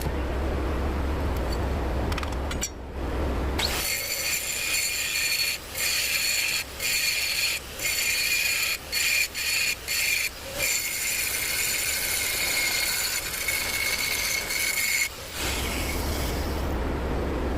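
Stick-welding arc crackling and hissing on a steel differential housing, stopping and restarting briefly several times as the arc is broken. Before and after it, a steady low hum.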